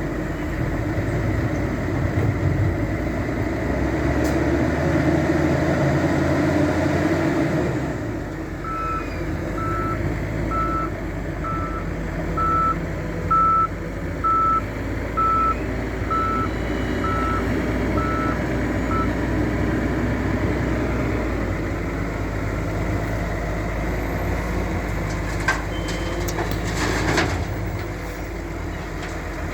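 Diesel engine of a wheel loader working, heavier for the first several seconds and then settling. A reversing alarm beeps about once a second for some ten seconds while the engine runs on. A few short knocks come near the end.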